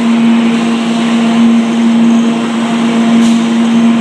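Clay brick production line machinery running: a loud, steady mechanical hum with one strong low tone, from the electric gear motors and roller conveyors moving green bricks.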